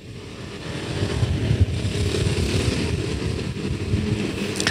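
A motor vehicle engine running close by, growing louder over the first second and then holding steady with a low rumble.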